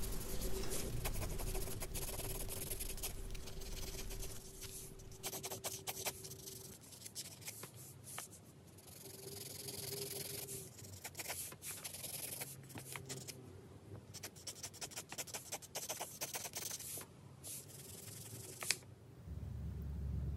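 Graphite pencil shading on sketchbook paper: runs of quick, scratchy strokes with short pauses between them. Near the end this gives way to a quieter, low rumbling background.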